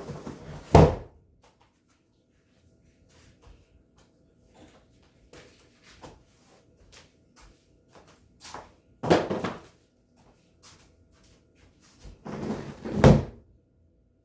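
Scattered light clicks and knocks, with three louder scraping bumps that each end in a thud: about a second in, around nine seconds in, and near the end. These are household objects being moved and set down.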